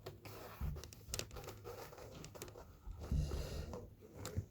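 Loose carpet being lifted and moved by hand, rustling, with scattered clicks and a few soft thumps as a speaker cable is tucked underneath.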